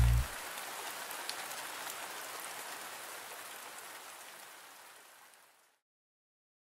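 Steady rain falling, a soft even patter with now and then a single distinct drop, fading out gradually and stopping about five and a half seconds in. The last of a song cuts off right at the start.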